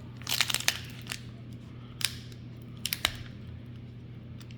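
Foil Pokémon booster pack being opened by hand: a quick cluster of crisp snips and crinkles about half a second in, then single sharp clicks near two and three seconds, over a steady low hum.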